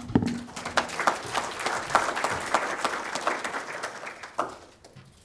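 Audience applauding: a short round of clapping that fades out about four and a half seconds in.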